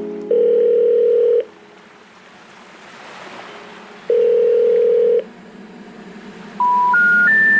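Telephone line tones: two long, steady ringing tones a few seconds apart, then three short beeps stepping upward in pitch, the special information tone that comes before a 'number cannot be reached' announcement.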